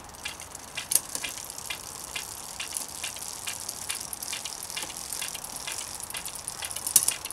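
Bicycle rear hub freewheel ticking as the wheel turns: a steady run of light clicks, with a louder click about a second in and another near the end.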